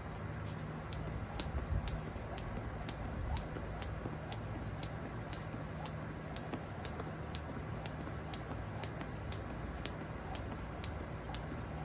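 Jump rope slapping a concrete driveway on each turn, a steady run of sharp clicks about twice a second, over a low steady hum.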